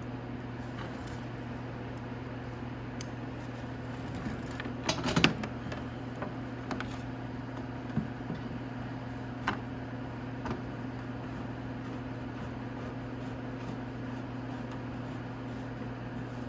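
Scattered light clicks and knocks of fairing bolts being fitted into a plastic motorcycle fairing by hand and Allen key, with a short cluster about five seconds in, over a steady low hum.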